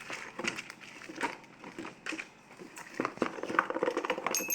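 Packaging being handled as a remote-control toy car is taken out of its box: irregular rustling, crinkling and small knocks.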